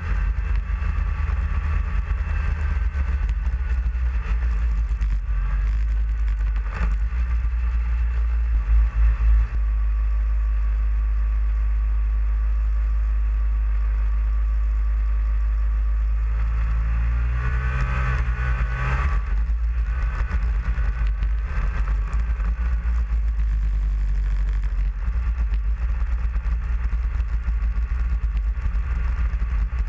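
Snowmobile engine running at trail speed, heard from the sled itself over a heavy steady low rumble. The engine note swells and rises in pitch for a couple of seconds a little past halfway, with a brief louder jolt about nine seconds in.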